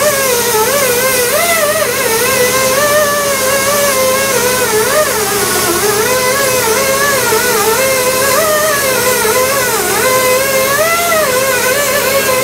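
Pneumatic die grinder with a small abrasive disc cleaning the cast-iron deck of an LQ4 V8 block: a loud whine whose pitch wavers up and down as the disc is pressed and eased against the surface.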